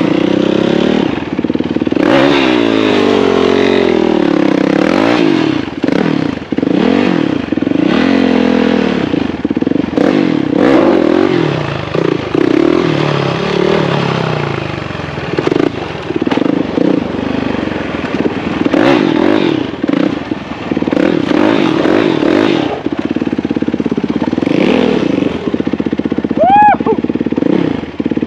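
Motorcycle engines revving, their pitch rising and falling over and over as the riders shift gears while wheelieing. Near the end there is a brief, high, rising squeal.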